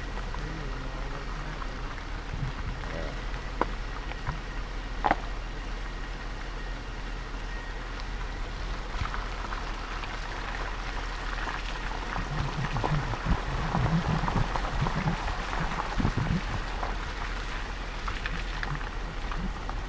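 Vehicle moving along a wet road: a steady hiss of water under the tyres over a low rumble, growing louder for a few seconds about two-thirds of the way through, with two sharp clicks near the start.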